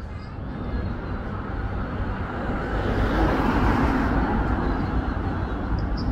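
Motor vehicle passing nearby: traffic noise growing louder to a peak about three to four seconds in, over a steady low rumble.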